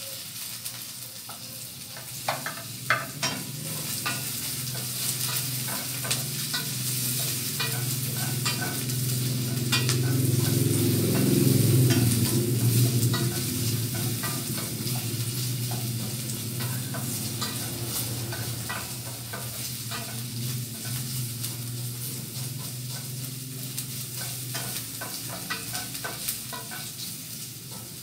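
Food sizzling in hot oil in a stainless steel pan, stirred with a wooden spatula that clicks and knocks against the pan now and then. A low hum swells to its loudest about midway, then fades.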